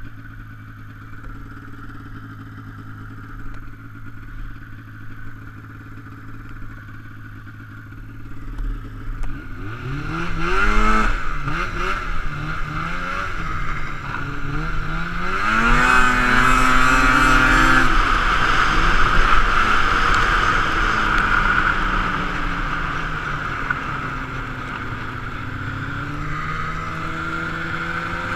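Polaris Indy XCR snowmobile's two-stroke engine idling steadily for about nine seconds, then revving as the sled pulls away and accelerates. Its pitch rises and falls with the throttle, runs highest and loudest about sixteen to eighteen seconds in, then settles to a steadier cruise and climbs again near the end.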